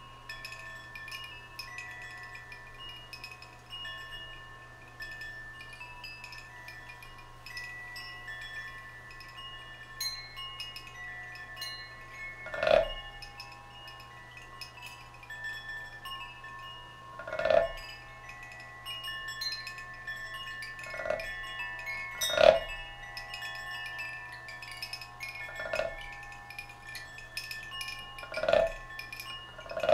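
Hanging metal chimes ringing, many overlapping bright tones struck lightly and left to sound. From about halfway through, louder strikes with a lower ringing tone come every three to five seconds, about seven in all.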